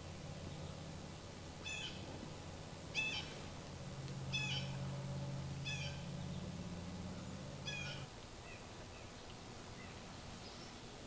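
An animal in the woods giving short, high mewing calls, five of them one to two seconds apart, over a low steady hum that stops about eight seconds in.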